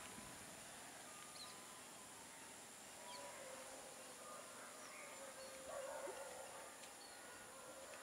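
Faint rural ambience: a steady high-pitched insect drone with scattered bird chirps, and a faint low tone that swells briefly about six seconds in.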